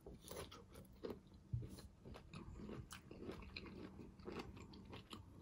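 Faint, close-miked chewing of sautéed zucchini, yellow squash and red onion: a steady run of small irregular crunches and mouth clicks.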